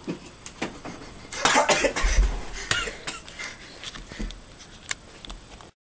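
A person coughing in a series of rough bursts, loudest about a second and a half in, with scattered clicks between; the sound cuts off suddenly near the end.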